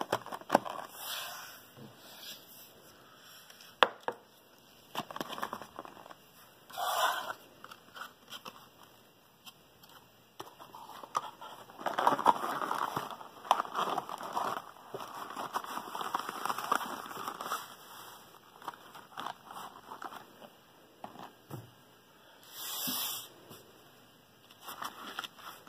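White paperboard knife-box packaging being handled and folded: paperboard rubbing, scraping and sliding against itself and the tabletop, with scattered sharp clicks and taps. A denser spell of scraping comes in the middle.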